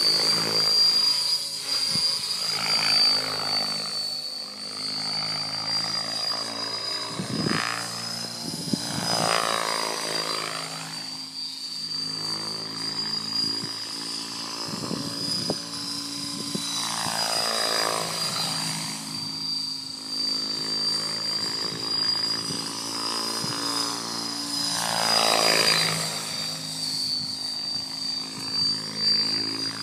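Logo 800 electric radio-controlled helicopter flying 3D aerobatics: a steady high whine from the drive, under the chop of the rotor blades. The rotor sound swells and sweeps up and down in pitch several times, around a third of the way in, past the middle and near the end, as the helicopter passes and flips.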